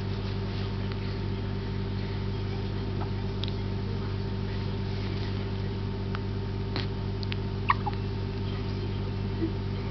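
Baby hiccuping: several short, sharp hics at irregular intervals, most of them in the second half, over a steady low hum.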